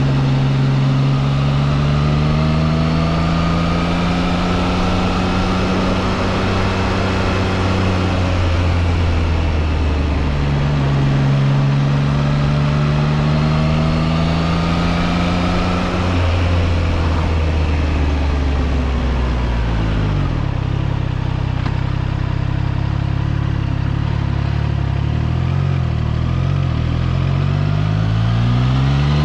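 Triumph Trident 660's 660 cc inline three-cylinder engine under way, its pitch climbing twice under throttle with a short break between, then dropping as the bike slows and climbing steeply again near the end.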